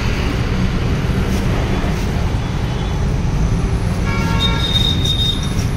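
Steady rumble of street traffic, with a vehicle horn sounding briefly about four seconds in.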